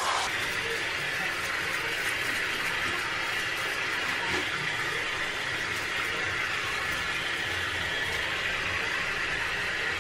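Handheld shower running steadily, water splashing into a shower tray while a dog is bathed.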